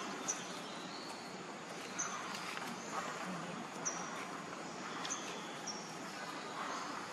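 Outdoor forest ambience: a steady background hiss with short, high bird chirps that drop slightly in pitch, coming every second or so, and a few faint clicks.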